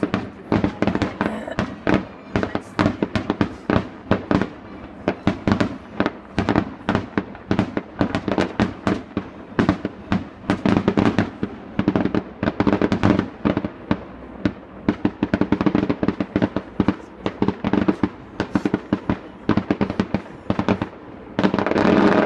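Aerial fireworks display: a rapid, unbroken barrage of shell bursts and crackle, several bangs a second, growing denser and louder near the end.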